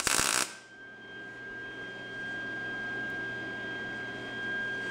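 MIG welder arc crackling as a nut is welded onto a snapped-off screw, cutting off about half a second in. After it a steady high whine and a low hum carry on.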